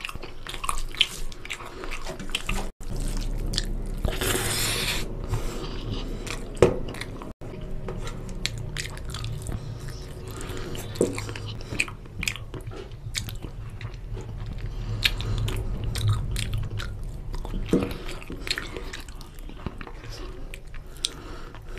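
Close-miked eating of curry-soaked rice and chicken by hand: wet chewing and lip-smacking with many small mouth clicks, and fingers squishing rice against a steel plate.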